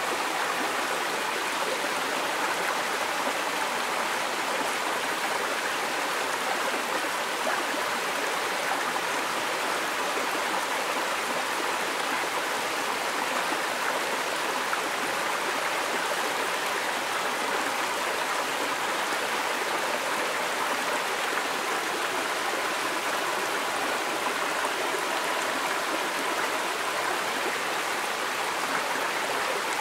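Small rocky woodland stream running steadily over stones and little cascades.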